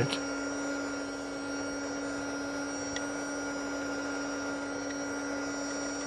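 A heat gun running steadily, a constant hum with a hiss of blown air, shrinking the heat-shrink tubing over the wires of a new XT60 connector.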